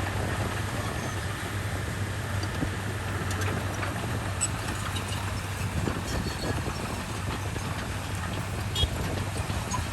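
Komatsu bulldozer's diesel engine running steadily with a low hum, with light scattered clicks and a sharper knock about nine seconds in.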